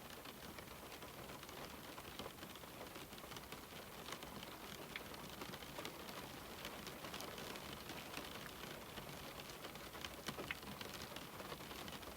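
Steady rain falling on a window pane: a continuous soft hiss with many small drops tapping irregularly on the glass, a few louder taps near the end.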